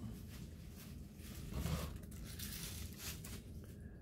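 Faint crinkling and tearing of a crushed plastic toy package being handled and pulled apart, with a slightly louder rustle a little under two seconds in.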